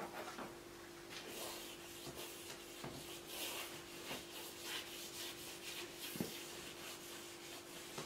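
Palette knife scraping and smearing oil paint across a stretched canvas in a series of short strokes, with one light knock about six seconds in, over a faint steady hum.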